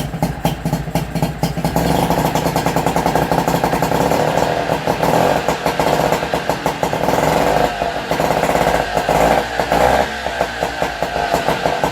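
Nissan 5 hp two-stroke outboard motor running with rapid, crackly firing strokes, its loudness rising and falling a few times. It has just caught and is running after being troubleshot for a no-start, now that fuel is reaching the carburettor bowl.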